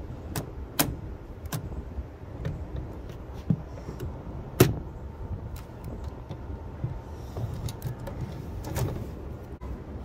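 Scattered clicks and knocks of an antique Hammond typewriter's metal frame being handled and shifted on a table, over a low rumble of handling noise, with one sharper knock a little under halfway through.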